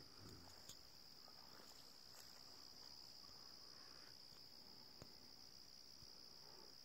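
A faint, steady chorus of night-singing crickets: one continuous high-pitched trill, with a couple of faint clicks.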